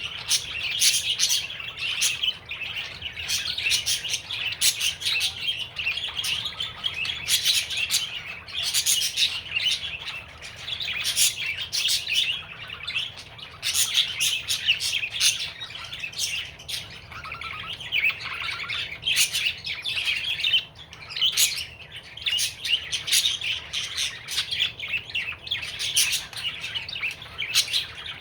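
Male budgerigar chattering and warbling without a break, a busy run of chirps with many quick clicks mixed in.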